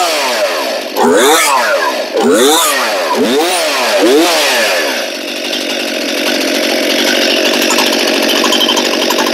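Brand-new Stihl MS261 C-M 50 cc two-stroke chainsaw on its first run, with M-Tronic electronic carburetion and no choke. It is revved up and down four or five times in quick succession, then from about halfway it runs steadily at a lower speed.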